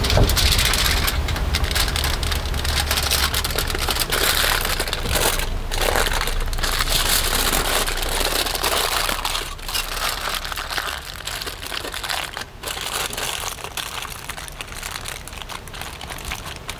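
Aluminium foil crinkling and crumpling as it is folded and pressed around a raw chicken, dense and loud for about the first nine seconds, then quieter and more broken as the wrapping is finished.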